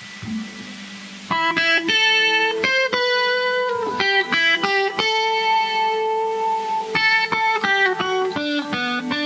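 Instrumental music: a guitar plays a melody of single plucked notes, starting about a second in after a faint low tone.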